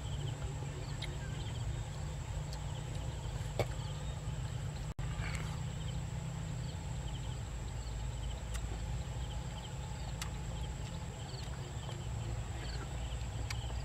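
Open-field ambience: a steady low rumble of wind on the microphone, with faint high chirps scattered through and a thin steady high-pitched whine.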